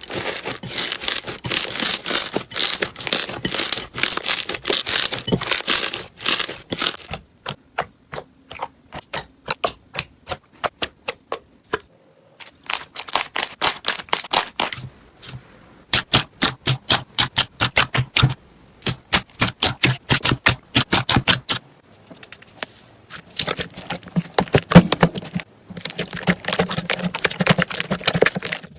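Crunchy slime being pressed and squeezed, giving rapid runs of sharp crackles and clicks. These come in several bursts with short pauses between, and in one stretch they fall into a steady run of about four clicks a second.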